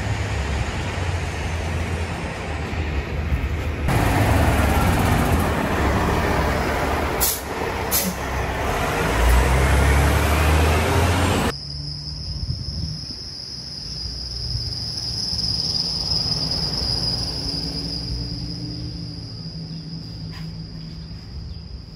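A heavy multi-axle military cargo truck drives past close by, its engine and big tyres making a loud rumble, with two short sharp hisses in the middle. About halfway through the rumble cuts off suddenly, leaving a quieter background with a steady high-pitched buzz.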